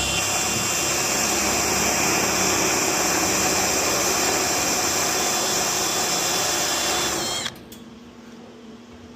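A drill spinning a spot weld cutter, cutting out a spot weld on a car quarter panel. It runs as a steady high whine with hiss and stops suddenly about seven and a half seconds in.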